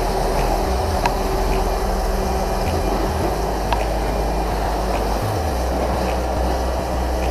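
Electric pressure washer running, its pump motor humming steadily while the jet sprays water onto a motorcycle. The low hum shifts in level a few times as the spray is aimed around.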